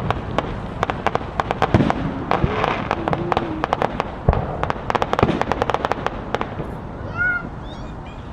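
Fireworks going off in a rapid, irregular string of sharp bangs and crackles for about six seconds, then stopping, with voices faintly behind them.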